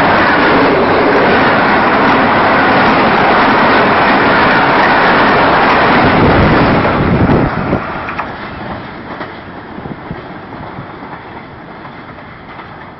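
Pakistan Railways express passenger train's coaches rolling past at speed close by, a loud steady rushing rumble of wheels on rails. About seven and a half seconds in the sound drops sharply and then fades away.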